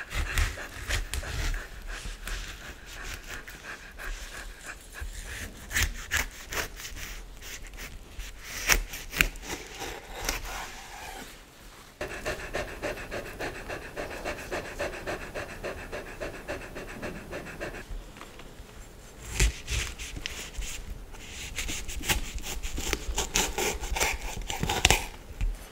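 A large kitchen knife cutting into a dragon fruit on a wooden chopping board, the cuts through the skin coming as runs of short sharp clicks, with a Samoyed panting close to the microphone.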